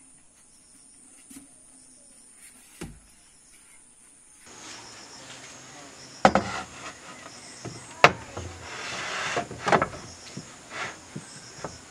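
Plywood bed slabs being set down on a bed platform frame: a few sharp wooden knocks, the loudest about six and eight seconds in, with the scrape of a board being slid into place between them.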